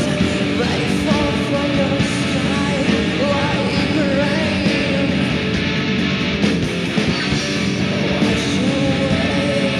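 Loud rock band recording: distorted electric guitars, bass and drums playing continuously, with a wavering pitched line riding on top.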